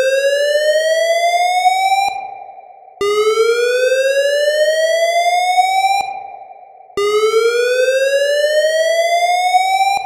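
Recreated Cerberus Pyrotronics fire alarm whoop tone through an alarm speaker: slow rising sweeps that repeat about every four seconds. Each one climbs in pitch for about three seconds, cuts off and echoes away before the next begins, with new sweeps starting about three and seven seconds in.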